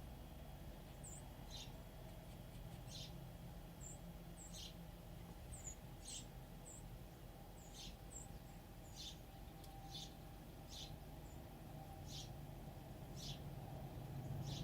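Small songbirds giving short, high chirps, irregularly about once a second, over a steady low background rumble.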